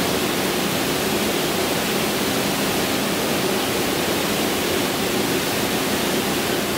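A steady, fairly loud hiss with a faint hum under it, unchanging throughout.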